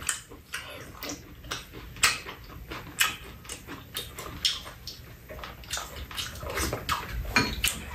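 Two people eating: chewing and slurping mouth sounds, with scattered sharp clicks of spoon and chopsticks against bowls and the pan.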